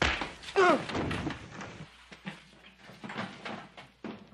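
A sudden thump, then a short falling scrape-like sound and shuffling movement noises.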